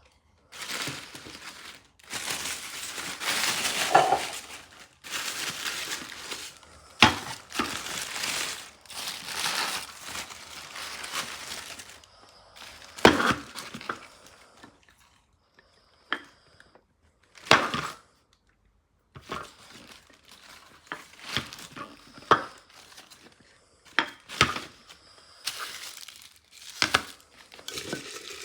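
Packaging being handled and torn open, in irregular crinkly bursts with a few sharp knocks and clicks. There is a short lull about two-thirds of the way through.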